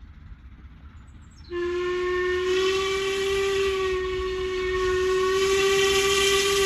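Steam locomotive whistle sounding one long, steady single-note blast with a hiss of steam, starting about a second and a half in over a low rumble.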